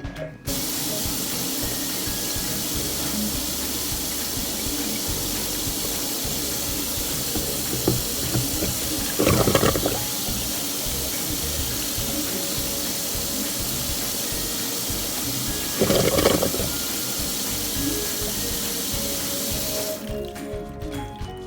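Water running hard into a kitchen drain: a steady rush that starts abruptly just after the beginning and cuts off suddenly near the end, with two brief louder surges about nine and sixteen seconds in.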